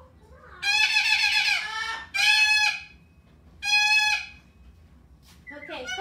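Pet parrot screeching: three loud, piercing calls, the first about a second and a half long and the other two shorter.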